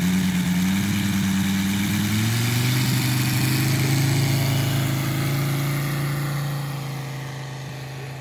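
NGH GF 150 engine of a 1/3-scale Sopwith Pup model biplane, turning a 32x10 two-blade propeller, opened up to full throttle for the takeoff run. Its pitch rises over the first two seconds or so, then holds steady and fades as the plane climbs away.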